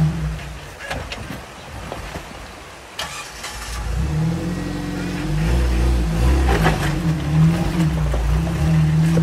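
Jeep Wrangler YJ engine crawling over rocks: it drops low for a few seconds, a sharp click comes about three seconds in, then the engine picks up again about four seconds in and revs up and down under load.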